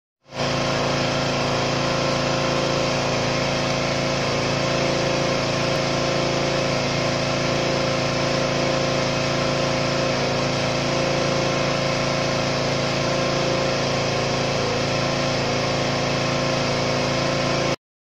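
Toyota car's engine idling steadily, a constant even hum that cuts off abruptly near the end.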